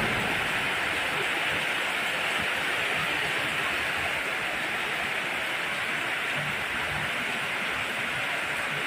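Heavy rain falling steadily, a dense even hiss of downpour.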